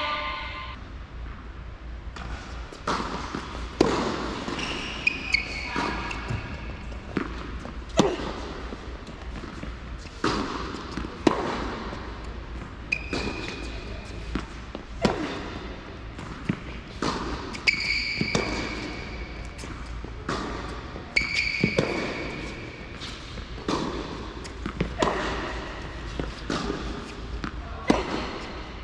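Tennis balls struck by rackets and bouncing on an indoor hard court in a steady rally, a sharp hit every second or so, each echoing in the large hall. A few short, high-pitched squeaks come in between the hits.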